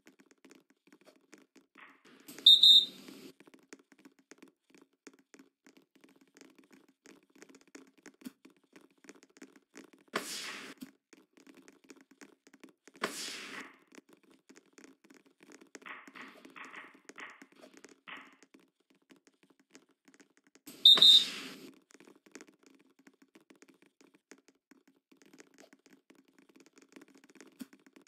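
Referee's whistle blown in two short, loud blasts, one a couple of seconds in and another about two-thirds of the way through, over a low steady gym hum. Two sharper knocks, like a volleyball being struck, come in between.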